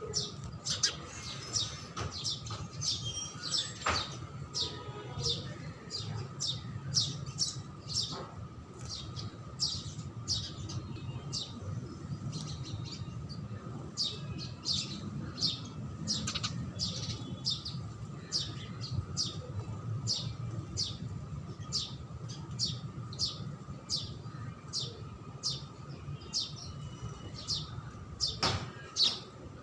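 House sparrows chirping continuously: short, high chirps about two a second, with hardly a pause.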